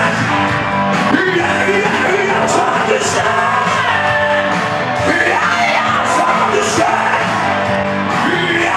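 A man singing over a karaoke backing track with a steady beat.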